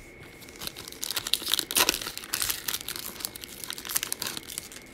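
Wrapper of a Prizm trading card pack being torn open and crinkled by hand: a run of irregular crackling rustles starting about half a second in and lasting roughly four seconds.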